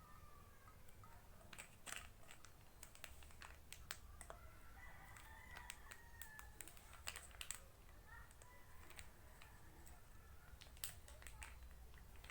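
Faint scattered clicks and taps from handling a container and ingredients while mixing homemade shaving foam, over low room tone.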